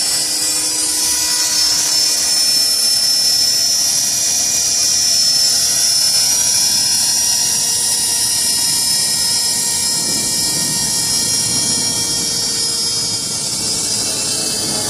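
Electric CopterX 450 RC helicopter in flight: the steady high-pitched whine of its motor and drive gears with the whir of its rotor blades, the whir growing stronger in the last few seconds.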